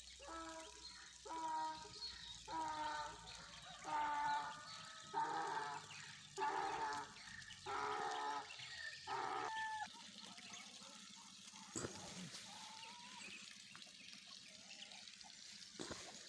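A domestic fowl calls about eight times in a row, roughly once a second; each call is a short pitched cry, and the series stops about ten seconds in. Faint trickling water sounds underneath.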